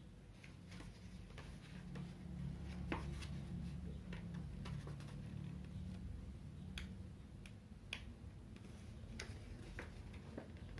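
Faint scattered clicks and light taps, about half a dozen spread irregularly, over a low background rumble that swells for a few seconds in the middle.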